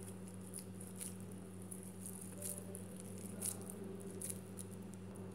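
Hands pressing and shaping a soft, oiled mixture of boiled noodles, mashed potato and peas into a cutlet: faint squishing with light scattered clicks, over a steady low electrical hum.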